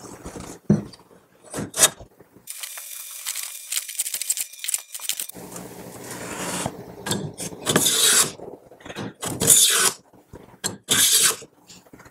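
Restored Sargent No. 400-series iron hand plane taking shavings off the edge of a board with its freshly honed blade. One long scratchy pass comes first, then several shorter strokes in quick succession.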